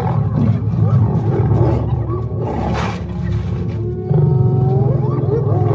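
Lions snarling and growling as they fight spotted hyenas, with the hyenas' calls gliding up and down in pitch over the growls. The growling grows louder about four seconds in.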